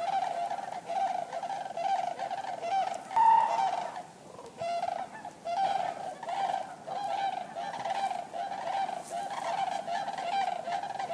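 Common cranes calling, a quick run of short, repeated honking calls that barely pause, with one louder, higher call about three seconds in and a brief lull just after.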